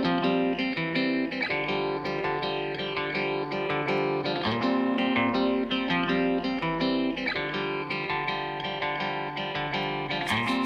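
Background music led by a plucked guitar, playing a steady run of notes.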